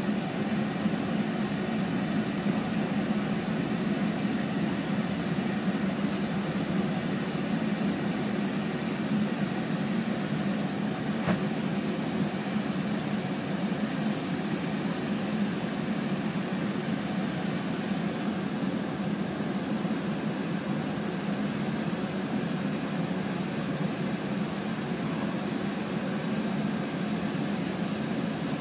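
Steady drone inside a Metrolink commuter train's passenger car, even in level throughout, with one brief click about eleven seconds in.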